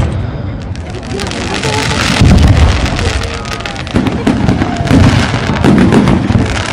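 Fireworks going off: several loud low booms of shells bursting, about four in all, with crackling in between.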